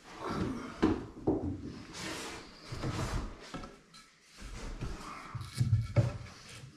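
A length of wooden batten being handled and set against a wall and onto a wooden top: several sharp wooden knocks with scraping and rubbing between them.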